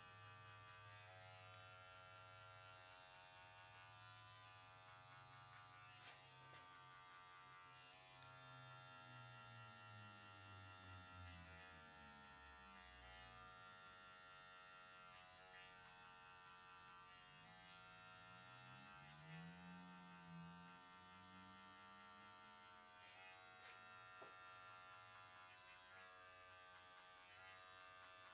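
Adjustable-blade electric hair clippers buzzing faintly and steadily as they cut and blend a skin fade.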